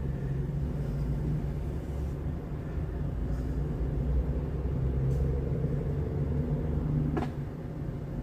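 Chevy Silverado's engine idling steadily with a low hum, and one sharp click about seven seconds in: the click that signals the truck has accepted the aftermarket remote being programmed.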